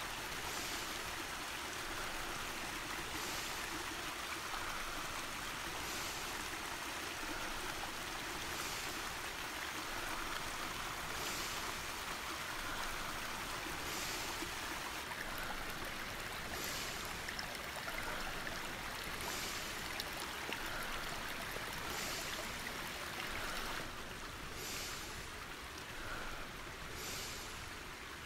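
Water running steadily in a stream, with a soft hiss that swells about every two and a half seconds.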